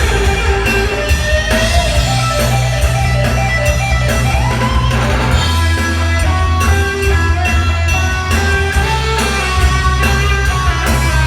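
Rock band playing live: electric guitar over bass and drums, with a lead line that bends up in pitch twice.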